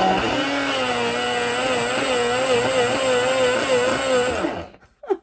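Hamilton Beach single-serve blender motor running while the jar is held pressed down on the base, chopping banana and mango; its pitch wavers as the blades labour through the fruit. The motor stops a little before the end.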